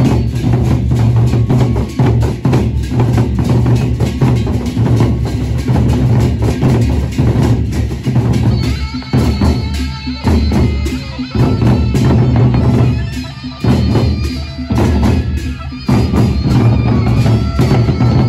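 Gendang beleq, the large Sasak barrel drums of Lombok, played by a marching ensemble in a loud, fast, dense drumming rhythm, with thin ringing tones above the deep drum strokes.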